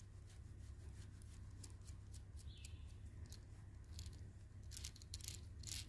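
Faint, small metal clicks and clinks of a bolt, washer and nut being handled and fitted into a socket, getting busier and louder near the end.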